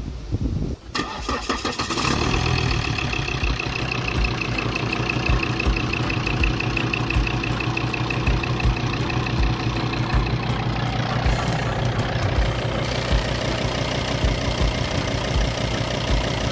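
Volvo D5 five-cylinder turbo-diesel starting after its timing has been set and the engine reassembled: a brief uneven start that settles within about two seconds into a steady idle. A high whine runs over the idle and fades out about two-thirds of the way through.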